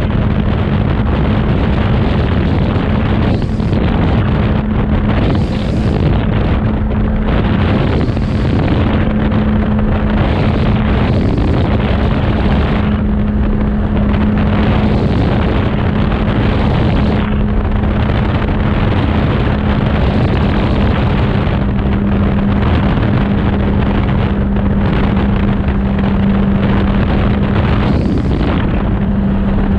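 Open-cockpit light aircraft in flight: the engine drones steadily at cruise while wind rushes hard over the microphone.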